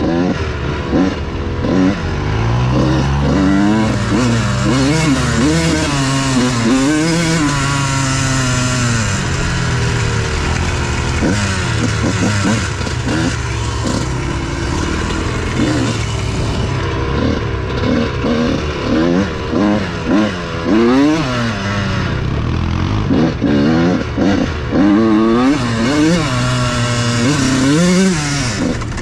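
Dirt bike engine heard close from on board, revving up and dropping back again and again as the bike is ridden.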